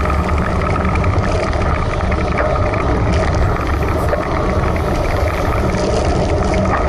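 Wind buffeting a handlebar-mounted camera's microphone on a road bike moving at about 20 km/h: a steady, loud low rumble, with hiss from the tyres on the wet road.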